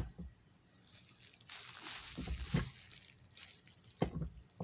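Handling noise from a die-cast model train locomotive being picked over: a sharp click, a few light knocks, and a stretch of rustling about two seconds in.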